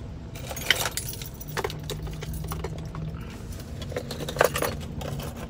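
Microphone box and its packaging being handled and opened by hand: rustling and crinkling with scattered small clicks and taps.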